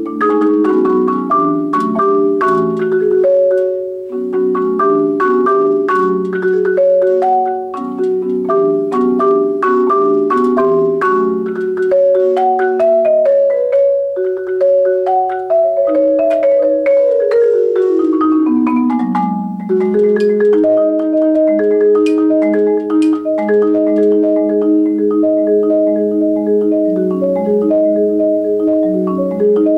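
Solo marimba played with four mallets: held chords under a melody, a falling run of notes a little past halfway, then evenly repeated chords.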